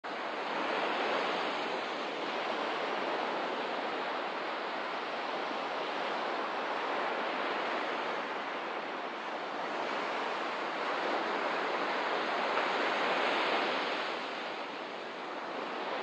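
Sea waves washing onto a shore: a steady rushing surf that swells and eases slowly, with no music or voice over it.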